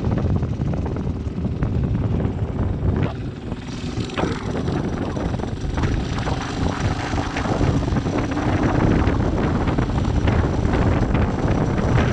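Motorcycle engine running steadily while riding along a dirt track, mixed with rushing wind and road noise.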